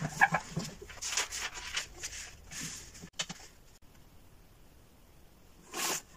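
A sheet of paper rustling and sliding as it is laid flat on a wooden drawing board, with a few light knocks. Near the end comes one short scrape.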